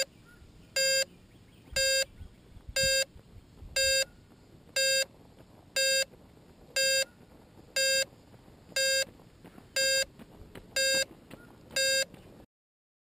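Electronic beeping from the upturned quadcopter: one short beep about every second, all at the same steady pitch, over faint low rumble. The sound cuts off suddenly near the end.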